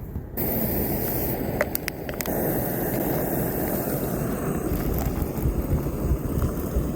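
Wind on the microphone: a steady, rushing rumble that wavers in level, with a few faint clicks about a second and a half in.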